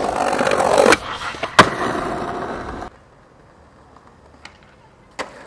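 Skateboard wheels rolling on concrete, with a sharp clack of the board about a second in and a louder snap about a second and a half in, the rolling going on until about three seconds. After a quiet stretch, one sharp clack of the board near the end.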